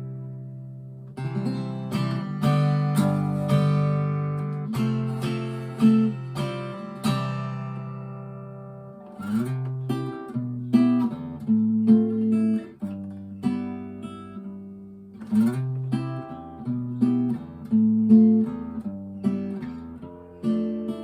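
Epiphone Zenith archtop guitar with acoustic strings being played: chords struck and left to ring, dying away slowly, then a busier run of chords from about halfway.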